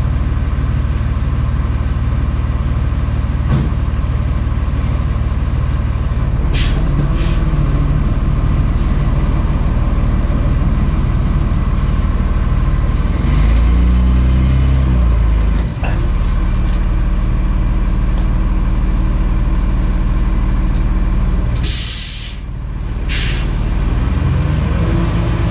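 Tow truck engine running steadily, revving up and back down once midway, with short sharp hisses of air, two about six seconds in and two near the end.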